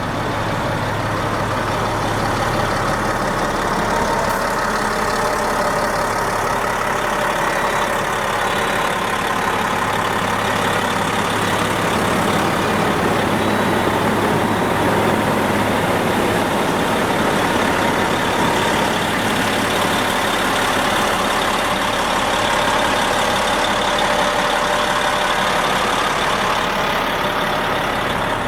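Caterpillar D8T bulldozer's C15 diesel engine running steadily at a constant speed.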